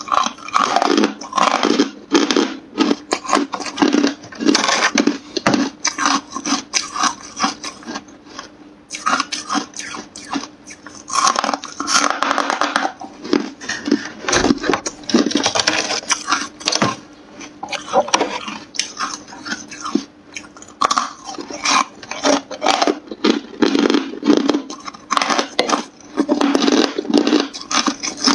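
Hard frozen ice being bitten and chewed close to the microphone: a dense, loud run of crunches and cracks. Around the middle the crunching gives way to a more continuous scraping and rattling of ice as another chunk is taken from the frosted freezer drawer.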